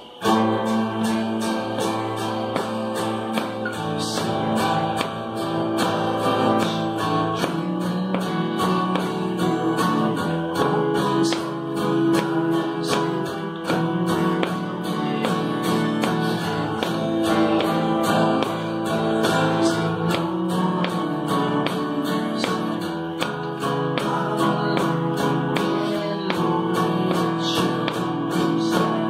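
Guitar strummed in a steady rhythm, chords ringing through a song.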